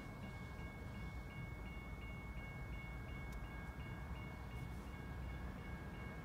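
Railroad crossing bell ringing in a fast, even repeating pattern while the crossing gates are down, the warning for a train at the crossing. A steady low rumble runs underneath.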